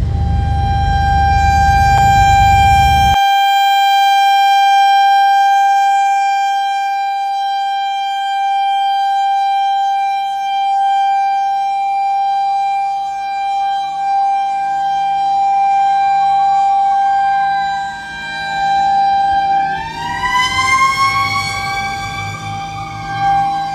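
Sirens sounding: one holds a single steady pitch throughout, while a second siren wavers up and down from about ten seconds in and winds up higher near the end. A low rumble under the first few seconds cuts off suddenly.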